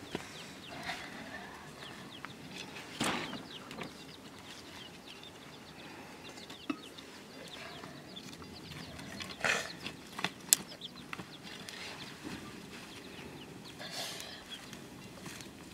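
Chickens clucking now and then, with scattered knocks and a sharp snap about ten seconds in from sticks being handled at an open wood fire.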